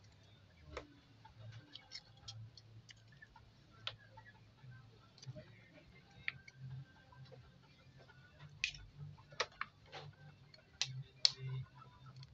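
Raw eggs being tapped with a metal spoon and cracked open over a glass bowl: irregular sharp clicks and taps of spoon on eggshell and shell on glass, coming thicker and louder in the last few seconds. A faint low hum runs underneath.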